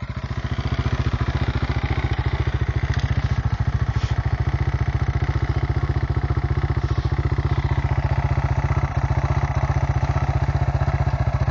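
Enduro motorcycle engine idling steadily close by, a fast even beat that neither revs up nor dies down.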